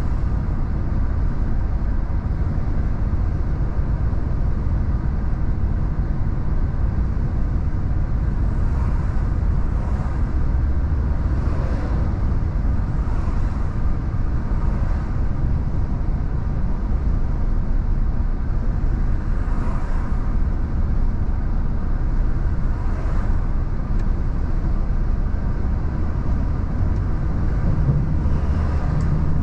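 Renault T480 truck cab at cruising speed: steady diesel engine drone and tyre and road rumble inside the cab, with a few faint swells as oncoming vehicles pass.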